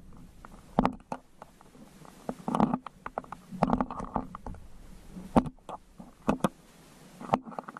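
Muffled underwater knocks and thumps, picked up by a GoPro in its waterproof housing lowered into a stone-lined well. They come at irregular times, with a few sharper knocks about a second in and past the middle.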